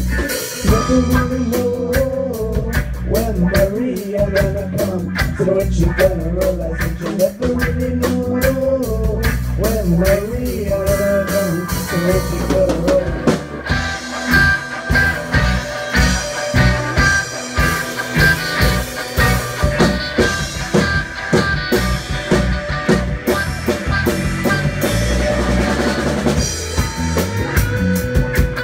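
Live reggae band playing an instrumental break with no vocals: electric guitars, electric bass and a drum kit. A lead line of wavering, bending notes stands out in the first half; from about halfway the drumming gets busier and the guitars fill out higher up.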